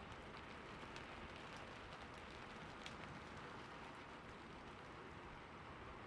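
Steady rainfall, a soft even hiss with a few individual drops ticking out of it.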